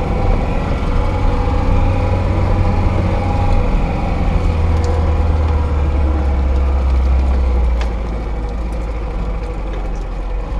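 Lada Niva (VAZ-2121) engine running, heard from inside the cabin as a steady low drone that eases a little about eight seconds in, with a few light knocks.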